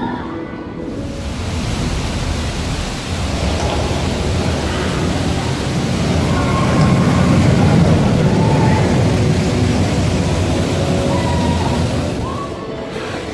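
Intamin steel roller coaster train rumbling along its track, a steady rushing noise that swells to its loudest about seven seconds in and dies down near the end.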